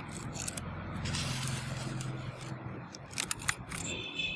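Expanded polystyrene foam being pushed through a hot-wire cutter, scraping and crackling in irregular clicks as the foam rubs and pieces break away, with a brief squeak near the end. A steady low hum runs underneath.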